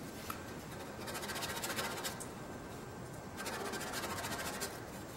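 Hands scratching and rubbing against an aluminium wing rib, in two stretches of rapid fine ticking about a second long each, one near the start and one just past the middle.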